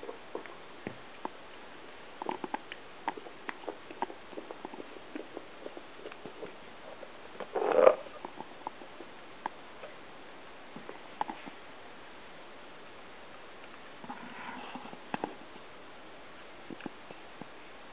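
A husky licking out an empty metal dog food can, with many small clicks and scrapes of tongue and tin on the floor, and one louder scrape of the can about eight seconds in as it is pushed over.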